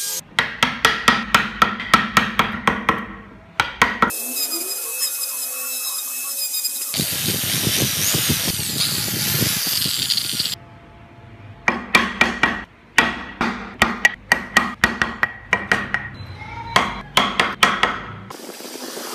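Rapid hammer taps on a chisel cutting into wood, about four a second with a slight ringing, in two runs. Between the runs a power tool runs for several seconds, first with a thin high whine and then as a louder even hiss.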